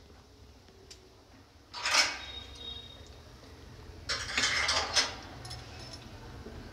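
Metal spoon and ladle clinking against a steel cooking pot. There is one short clink about two seconds in, then a longer bout of clattering and scraping about four seconds in.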